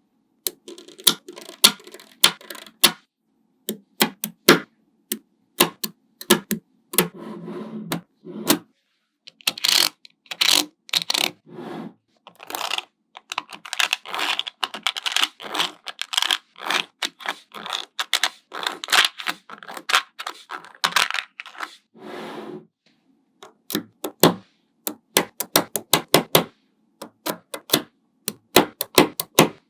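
Small metal magnetic balls clicking and snapping together, one sharp click at a time, with long stretches of rapid clicking and rattling as many balls are pushed and rolled into place.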